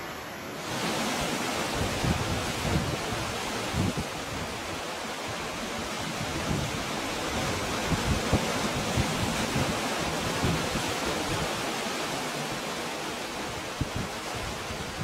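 Sea water rushing and washing steadily through a rocky cove, a continuous surf noise that swells fuller about half a second in.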